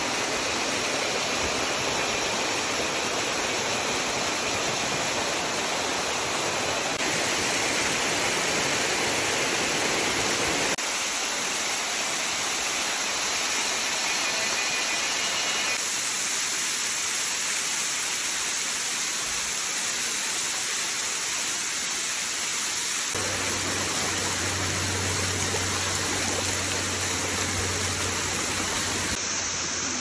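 Rushing stream water, a steady loud rush whose tone changes abruptly several times. A low steady hum joins in for a few seconds near the end.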